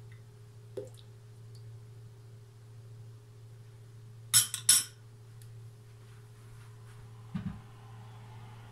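Kitchen utensils knocking against a stainless steel mixing bowl: a faint tap about a second in, two sharp clinks close together about halfway, and a duller knock near the end, over a low steady hum.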